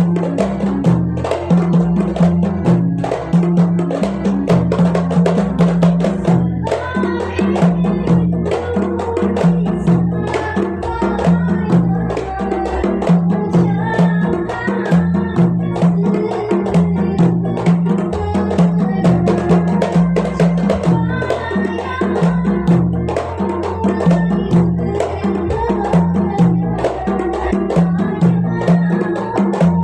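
Qasidah song music with a steady beat of sharp percussion clicks over a bass line; a higher melody joins about seven seconds in.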